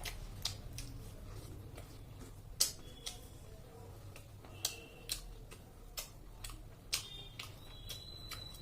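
Close-up eating sounds during a chicken-feet and rice meal: irregular sharp clicks and smacks of chewing and handling food, a few of them ringing briefly.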